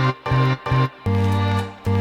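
Background music: an instrumental with short, punchy pitched notes in a bouncy rhythm and one longer held note about a second in.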